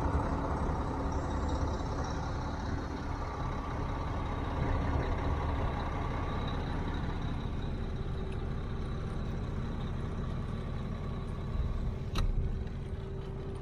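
Idling truck engines: a steady low rumble, with a single sharp click about twelve seconds in.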